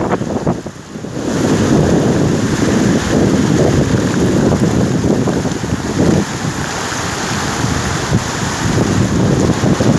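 Wind buffeting the microphone: a loud, gusting low rumble, with a brief lull about half a second in.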